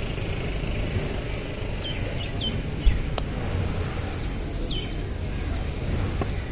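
A large knife knocks once on a wooden log chopping block about three seconds in as a tuna is cut into fillets, with a few fainter clicks. Underneath runs a steady rumble of traffic, and a few short, high, falling chirps come about two and five seconds in.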